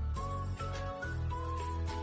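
Background music: an instrumental track with a melody line over a steady bass and beat.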